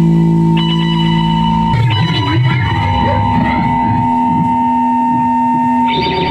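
Rock music: electric guitar and bass holding long chords, changing to a new chord about two seconds in and again near the end.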